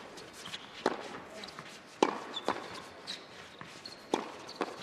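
A doubles rally in tennis: racquets strike the ball and it bounces on the hard court, about five sharp pops spaced roughly a second apart, with short high sneaker squeaks in between.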